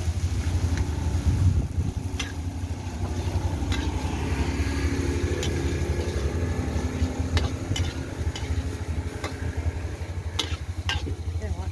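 Noodles being stir-fried in a wok: a metal spatula clanks and scrapes against the wok at irregular intervals over the frying, with a steady low rumble underneath.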